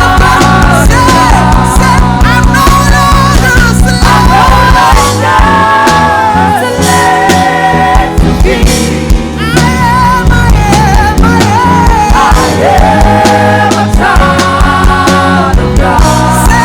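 Church worship band playing a contemporary worship song, with singers over steady bass and drums.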